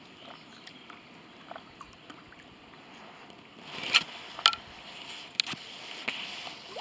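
Small lake waves lapping, with a few sharp water slaps: a cluster about four seconds in and two more near the end.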